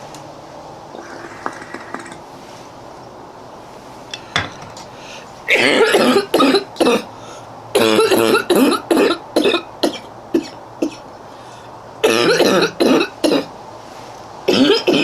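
A girl coughing in repeated fits, each a run of several quick coughs. The first fit comes about a third of the way in, after a few seconds without coughing. Two more follow, and another starts right at the end.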